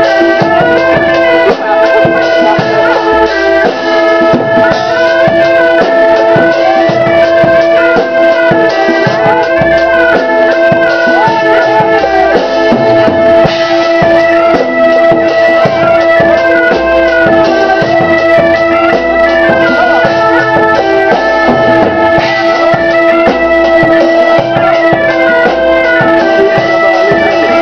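Medieval dance music: a fast melody running over two steady drone notes, with a drum beat.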